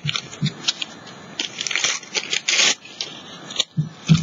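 Tissue paper crinkling and tearing in the hands, a quick run of rough rustles and crackles with one longer rip about two and a half seconds in. A single sharp tap comes about three and a half seconds in.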